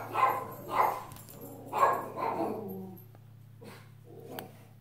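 A dog barking about four times in the first two and a half seconds, alert barks as it patrols the house, over a faint steady low hum.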